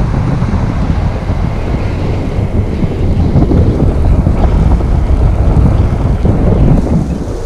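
Wind noise from the airflow of paraglider flight hitting the camera's microphone: a loud, steady, low rumble with no break.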